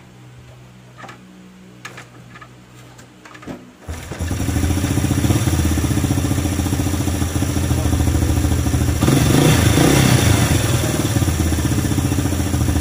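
Honda EX5 motorcycle's four-stroke single-cylinder engine, side cover off with the flywheel exposed, starting about four seconds in after a few light clicks, then running steadily and getting a little louder from about nine seconds in. It is a test run to see whether the newly fitted gasket and oil seal stop the oil leak.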